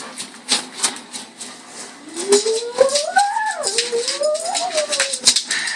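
Rapid rattling clicks from a toy shaken for a puppy, with one long whine-like call that rises and falls in pitch from about two seconds in.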